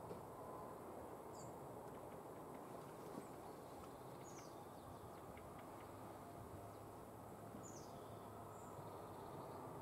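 Faint outdoor background: a steady low rumble, with a few short, high bird chirps scattered through it.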